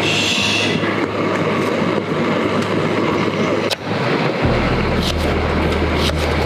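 Steady noise of sea surf and wind. A brief rustle of paper towel being pressed down in a steel bowl comes at the start, a few light clicks follow, and a low steady hum joins about four and a half seconds in.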